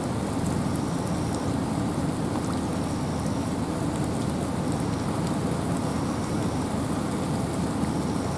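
Steady rain and wind in a forest: an even, unbroken rush that is strongest in the low range, with tiny ticks of individual drops.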